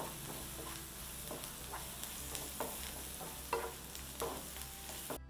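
Chopped onions, green chillies, garlic and curry leaves sizzling in oil in a nonstick kadai while a wooden spatula stirs them, scraping and tapping the pan about twice a second. The sizzle cuts off suddenly just before the end.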